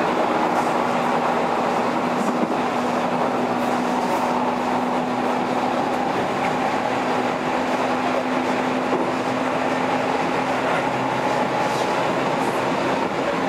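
Keihan 3000 series electric train running between stations, heard from inside the car: a steady rumble of wheels on rail with a constant low hum from the train, which fades about eleven seconds in, and a few faint rail-joint clicks.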